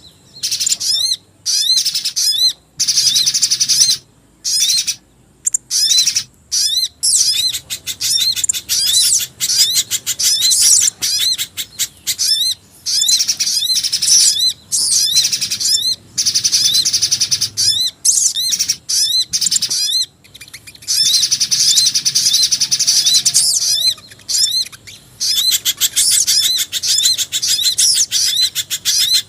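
Bird-lure recording of small songbirds, the calls of a pijantung gunung (spiderhunter) and a jingjing batu combined: fast, high-pitched chirping trills in bursts of one to several seconds with brief pauses, over and over.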